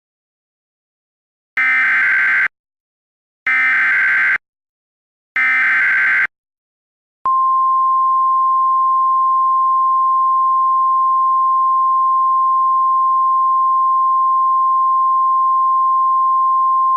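Emergency Alert System SAME header: three short bursts of screechy digital data tones, about a second each, encoding a severe thunderstorm warning. Then a single steady attention tone at one pitch, the 1050 Hz Weather Radio alert tone, begins about seven seconds in and holds on.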